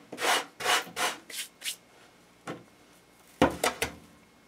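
Hands and a tin can scraping and rubbing through loose casting sand on a wooden workbench: a run of short scrapes in the first two seconds, a single tap, then three more quick scrapes near the end.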